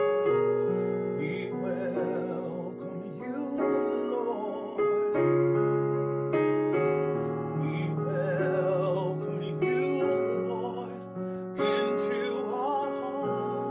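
A gospel vocal group sings a slow worship song with vibrato over sustained keyboard piano chords. A new chord is struck every second or two.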